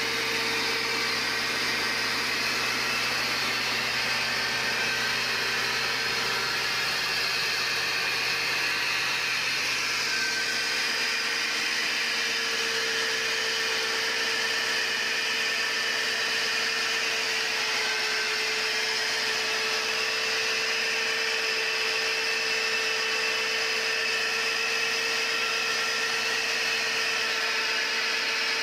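A machine's motor running steadily with a whine, holding an even pitch, with a slight shift in tone about ten seconds in.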